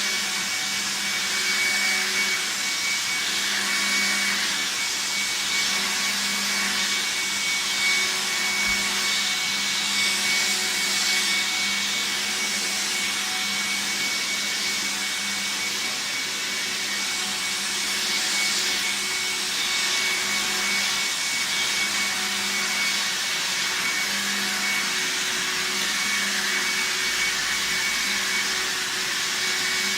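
VAX T1300 upright vacuum cleaner running steadily, its motor giving a continuous rushing noise with a high whine.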